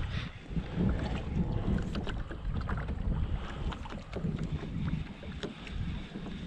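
Wind buffeting the microphone in uneven gusts, with small scattered ticks and splashes of water around a kayak.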